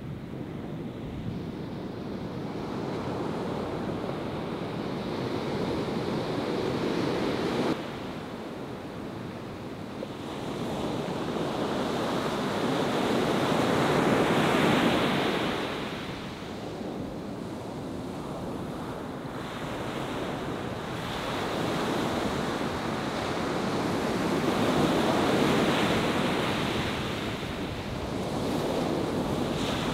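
Ocean surf breaking and washing up the beach in a steady rush that swells twice to a louder wash, with wind on the microphone.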